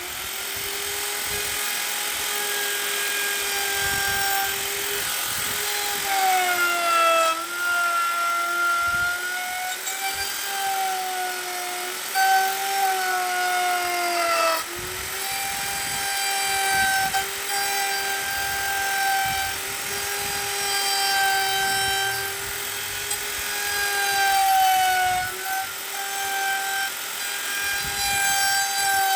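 High-speed electric power tool motor running with a steady whine, its pitch sagging several times as it bites into the wood and recovering as the load comes off.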